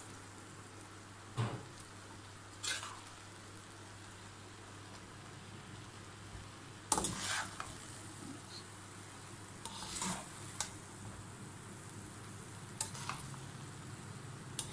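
Metal slotted spoon scraping and knocking against a non-stick pan as cooked sweet rice is stirred and turned over, in a handful of separate strokes, the loudest about seven seconds in.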